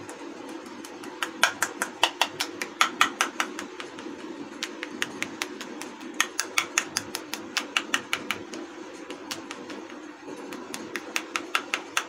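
A fork pricking holes in rolled dough pressed over an upturned metal katori: quick runs of sharp clicks, several a second, as the tines jab through to the metal bowl, with short pauses between runs. A steady low hum sits underneath.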